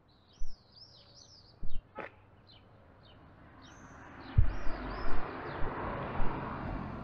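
A small bird chirping over and over in short, high, arching notes. Low thumps of wind buffeting the microphone, and from about halfway a rushing noise that grows louder.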